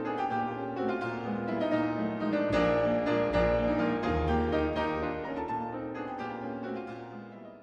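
Classical piano music with many overlapping notes. Deep bass notes come in about two and a half seconds in, and the music fades out near the end.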